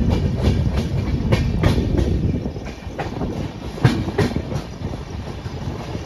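Passenger train coaches running at speed: a steady low rumble with wind noise, and the wheels clicking irregularly over rail joints. One sharper knock comes about four seconds in.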